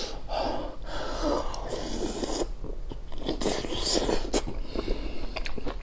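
Close-miked mouth sounds of a person eating soft pig brain: breathy air sounds at first, then wet lip smacks, clicks and chewing from about three seconds in.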